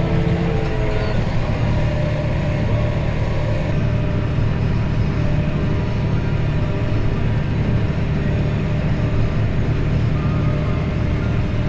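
Tractor engine running steadily under load, a continuous low drone.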